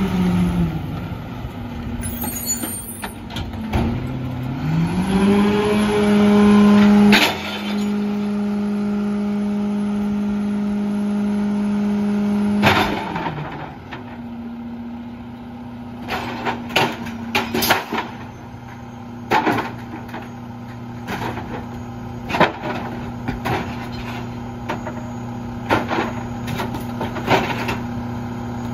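Diesel engine of a Mack LEU garbage truck with a Heil 5000 rear-loader body: it slows, then revs up about four seconds in and holds a steady pitch for several seconds. In the second half it runs steadily while bulky trash is thrown into the rear hopper, making a series of knocks and thumps.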